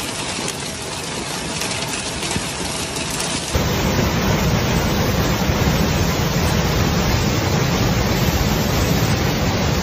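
Hail and rain falling steadily. About three and a half seconds in, it gives way to the louder, rushing roar of a muddy flash-flood torrent with a low rumble underneath.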